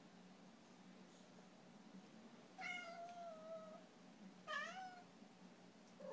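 Domestic cat meowing at a closed door, begging to be let out: a long, drawn-out meow about two and a half seconds in and a shorter one about a second and a half later, with another just starting at the very end.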